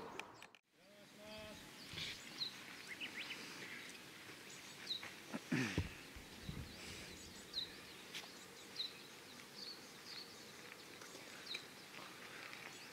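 Quiet open-air ambience with small birds chirping at intervals, short high chirps, and a brief faint voice near the middle.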